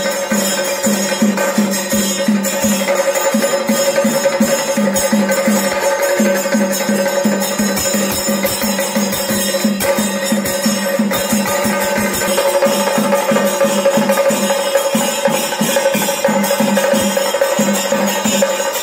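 Chenda melam: Kerala chenda drums beaten in a steady, even rhythm of about three strokes a second, with a jingling metallic shimmer and a steady held tone over the drumming.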